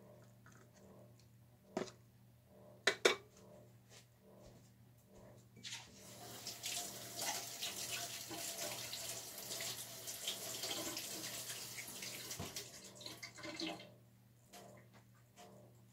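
Two sharp knocks, then water running for about seven seconds, as from a tap into a sink, over a steady low hum.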